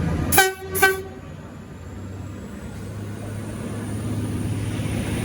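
Two short toots on a V/Line VLocity diesel railcar's low-note horn, about half a second apart. A low rumble from the train grows louder toward the end.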